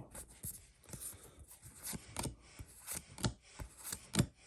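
Pokémon trading cards being flipped through by hand: a string of soft card snaps and slides, roughly three a second, at an uneven pace.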